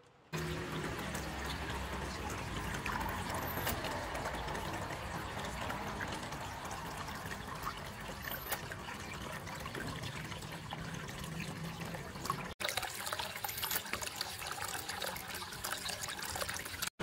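Water running and splashing steadily, broken by two very brief cuts in the last few seconds.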